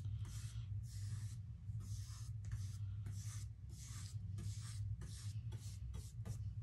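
Flat paintbrush loaded with acrylic paint scratching across canvas in short, quick back-and-forth strokes, roughly two a second, over a low steady hum.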